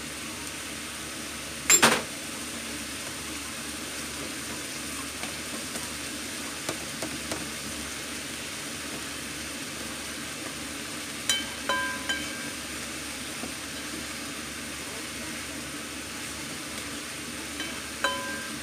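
Minced pork, beef and onion sizzling in a frying pan while being stirred with a spatula. A sharp knock comes about two seconds in, and short ringing clinks from the pan come about eleven seconds in and again near the end.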